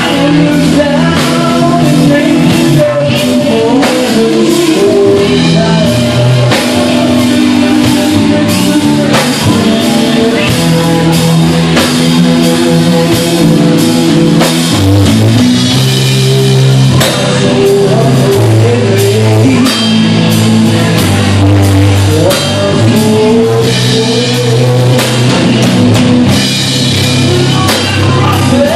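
A live rock band playing: an electric guitar through a Marshall amp over bass guitar and a drum kit, with pitches sliding up and down in the lead line.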